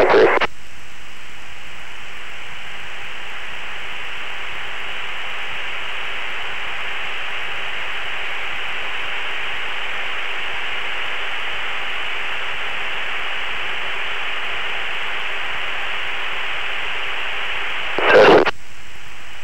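Steady band-limited hiss on the aircraft's radio and intercom audio channel, with a brief loud radio burst near the end.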